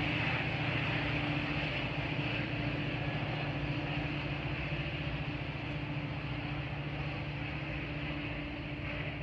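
Steady hum of a Metra diesel commuter train pulling away down the line, fading slowly as it recedes.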